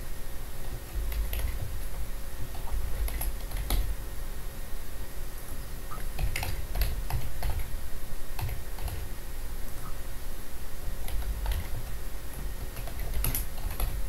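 Typing on a computer keyboard: irregular runs of keystrokes with short pauses between them, as login credentials and IP addresses are entered.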